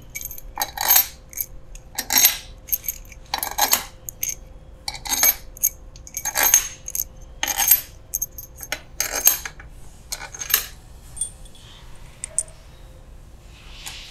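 A handful of steel crankcase bolts clinking against each other and against the aluminium case as they are picked out and set into the bolt holes. It is a string of sharp, ringing metallic clinks about once a second, which thins out near the end.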